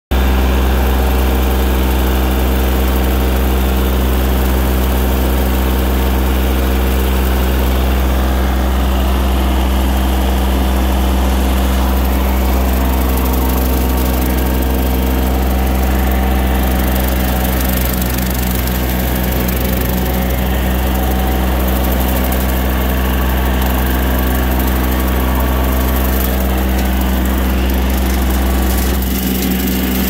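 John Deere compact tractor engine running steadily while its red mower deck cuts tall grass.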